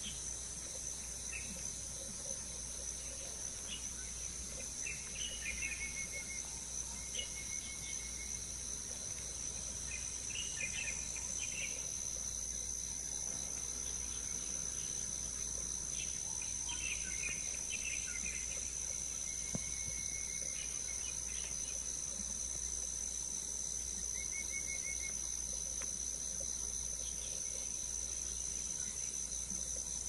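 Steady high-pitched insect drone with short, high bird chirps and brief whistles coming and going.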